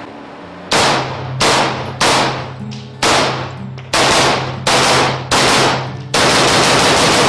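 JP Enterprises AR-15-type rifle in .223 Remington with a muzzle brake firing seven single shots, about two-thirds of a second apart. Then, about six seconds in, it fires a fast unbroken string of shots. Each shot echoes off the walls of an indoor range.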